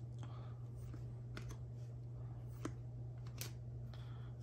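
Panini Prizm trading cards being flipped through by hand: a handful of light clicks and slides of card against card, over a steady low hum.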